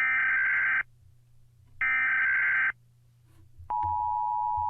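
United States Emergency Alert System alarm: two buzzy digital header bursts, each just under a second long and about a second apart. Near the end the steady two-tone attention signal begins.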